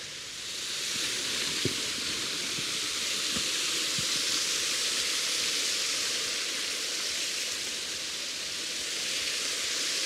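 Hörschbach waterfall pouring and splashing: a steady, even rush of water that swells in over the first second, with a few faint ticks in the first few seconds.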